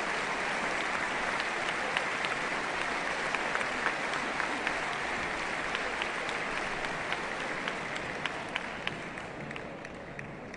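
Audience applauding in a concert hall. The applause slowly dies away, and a few separate claps stand out near the end.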